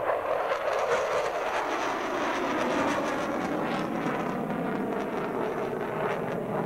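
Jet fighter's engine noise as it climbs steeply overhead, a steady rushing roar heard from the ground.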